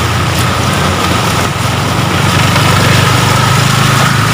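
Motor scooter engine running steadily, with rain falling in a constant hiss around it.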